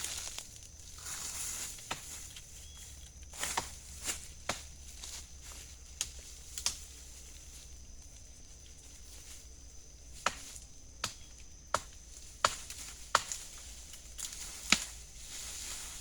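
Irregular sharp snaps and knocks, about a dozen, bunched in small clusters, over a steady high-pitched drone of night insects in the forest.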